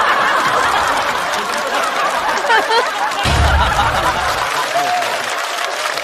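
Studio audience laughing and applauding after a joke, a dense steady wash of laughter and clapping, with a low rumble for about a second past the midpoint.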